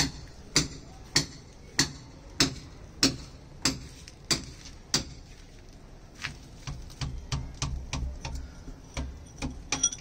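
Hammer striking a chisel into a brick wall to cut a groove for bathroom shower and pipe fittings. Steady, sharp blows about every 0.6 seconds, then lighter, quicker taps from about six seconds in.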